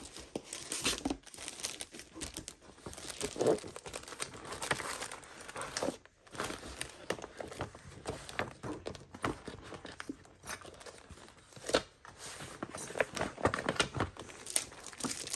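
Papercraft kit packaging crinkling and tearing as it is unwrapped and handled, in irregular crackles with a short lull about six seconds in.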